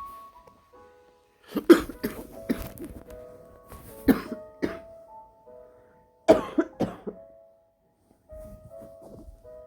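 A woman coughing in three fits of several short, harsh coughs each, over soft piano music.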